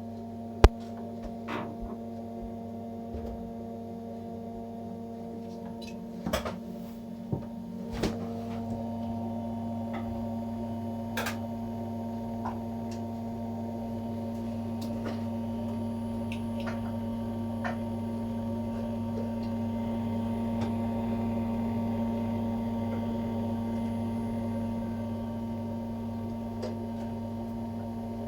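The fan of an Immergas gas boiler humming steadily, a droning hum that is the fault being recorded. It grows slightly louder about two-thirds of the way through, and a few sharp clicks sound in the first dozen seconds.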